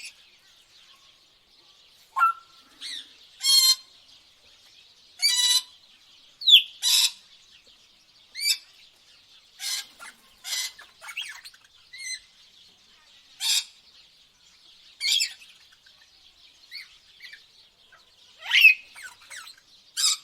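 Tropical birds calling: short chirps, whistles and sweeping notes, one every second or two, over a faint steady background.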